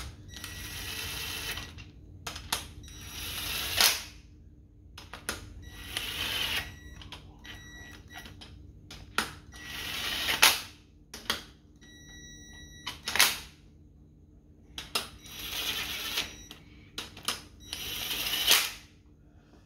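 Cordless impact driver running main-bearing cap bolts down in about six short bursts of a second or so each, hammering each bolt until it seats, with sharp clicks of the socket and tool between bursts.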